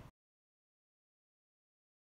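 Silence: the sound track cuts out abruptly just after the start and stays completely silent.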